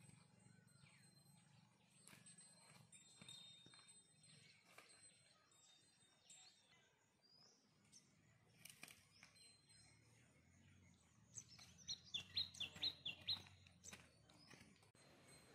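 A bird chirping: a rapid run of about ten short, falling chirps a little past two-thirds of the way in, over quiet outdoor background with faint scattered ticks.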